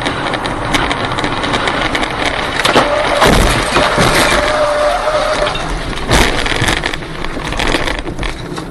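Road and wind noise inside a moving car, with loud knocks of flying debris striking the car about three seconds in and again around six seconds. A steady high tone sounds for a couple of seconds in the middle.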